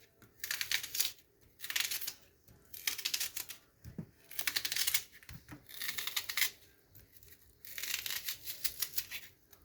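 An onion being worked by hand in the kitchen: about seven short, scratchy crackling bursts, each under a second, with brief pauses between them.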